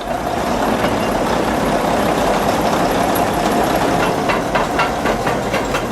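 Heavy diesel machinery running steadily with a deep rumble, with a series of short metallic clanks from about four seconds in.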